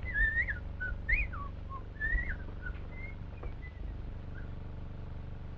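Whistling: a string of short notes that slide up and down, fading out near the end, over a steady low hum.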